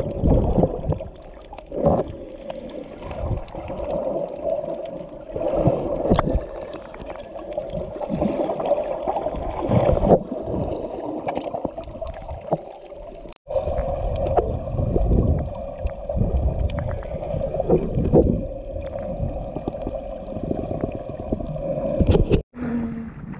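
Muffled underwater sound through an action camera's waterproof housing: water sloshing and rumbling against the case, with a steady hum and scattered knocks as the swimmer moves. The sound cuts out briefly twice.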